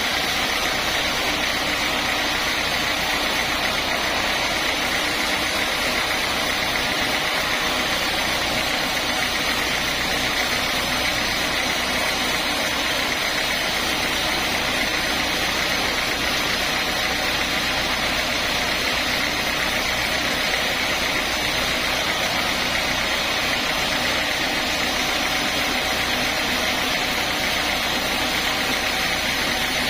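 Sawmill saw machinery running steadily, a constant mechanical hum with a steady high whine and no change in pace.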